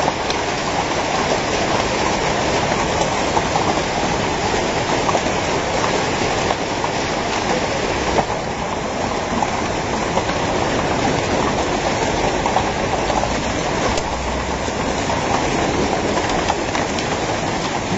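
Hailstorm: hailstones pelting the ground in a steady, dense rattle, a loud hiss with countless small sharp ticks.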